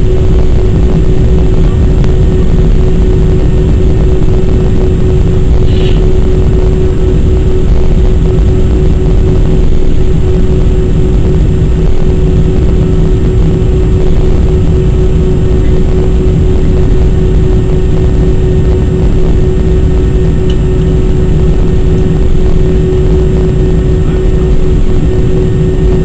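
Airbus A319 jet engines heard inside the passenger cabin: a loud, steady rumble with a constant hum running through it.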